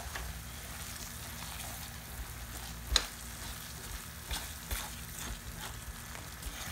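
Potato halwa sizzling gently in ghee in a ceramic-coated frying pan while a silicone spatula stirs and scrapes it, with light ticks throughout. About three seconds in comes one sharp tap, the loudest sound.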